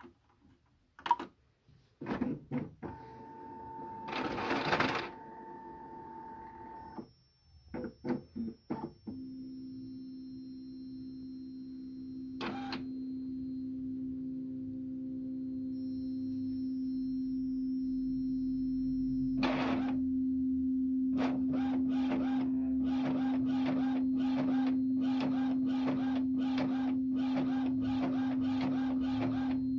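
Epson all-in-one inkjet printer copying a banknote: button clicks and the mechanism starting up with a whirring and a few clacks, then a steady motor hum. From about two-thirds in, the print head shuttles back and forth with a quick regular clatter, about two strokes a second.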